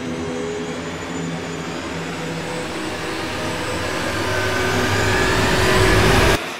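Small camera drone's motors and propellers whirring with a steady whine that grows louder, a tone rising near the end, then cuts off suddenly near the end.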